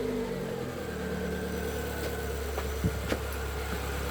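Chevrolet Celta 1.0's eight-valve four-cylinder engine idling steadily just after starting, with a few faint clicks around three seconds in. It runs on fresh semi-synthetic 5W30 oil, and the hydraulic-lifter tapping that poor-quality oil had caused is gone.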